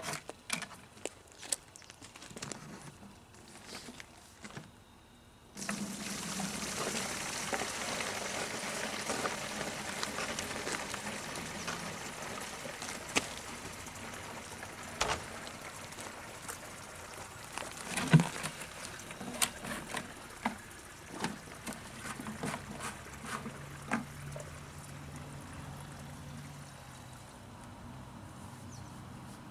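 Coolant pouring out of a Caterpillar 3412 diesel engine's drain into a container. The flow starts suddenly about five seconds in, after some quiet handling clicks, and then runs steadily, easing slowly, with a few knocks on top.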